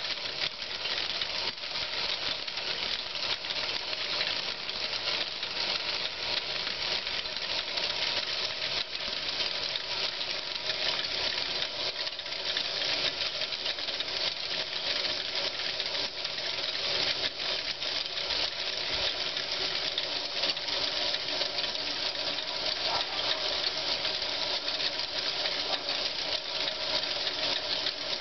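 Meccano figure-of-eight braiding machine running: a steady, dense rattle and clatter of its metal gears and bobbin carriers circling their tracks, with faint steady whining gear tones underneath.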